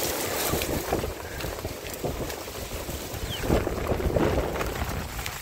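Heavy rain falling in gusty wind, the wind buffeting the microphone, with scattered pattering clicks. It swells louder a little past the middle.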